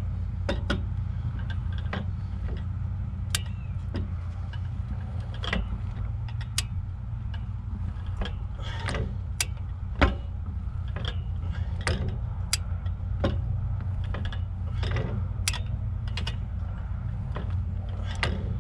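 Large 3/4-inch drive click-type torque wrench ratcheting in irregular clicks as it is worked on the pitman arm bolt. The bolt is being pulled toward its torque setting, which the wrench has not yet reached. A steady low hum runs underneath.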